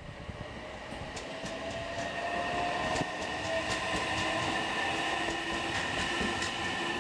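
Odakyu Line train approaching and running past a level crossing, growing louder over the first few seconds, with wheels clicking over rail joints and a steady high whine.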